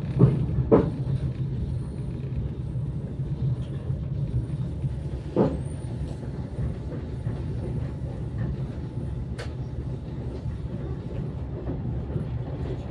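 Passenger train running, heard from inside the carriage: a steady low rumble with a few short knocks.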